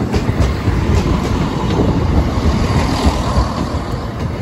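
Class 170 Turbostar diesel multiple unit passing close by, a loud steady rumble of wheels on rail and underfloor diesel engines.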